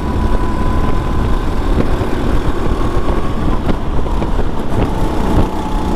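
Go-kart engine running at speed, heard from the driver's seat, over a heavy low rumble. A thin engine tone sags slightly in pitch over the few seconds.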